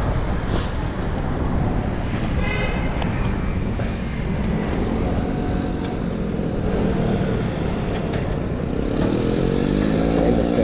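City traffic heard from a moving bicycle: a dense low rumble of wind and road noise, with a short high beep about two and a half seconds in. From about halfway a motor vehicle's engine runs close by, its pitch rising near the end as it speeds up.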